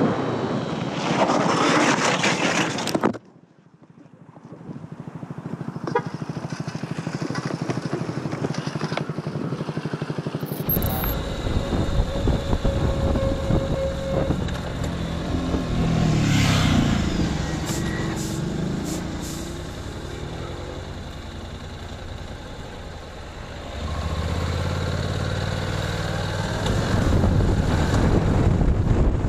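Motorcycle engine and wind noise from cameras mounted on the bikes. The sound breaks off abruptly about three seconds in, then a motorcycle engine runs again at low speed, its revs rising and falling a few times.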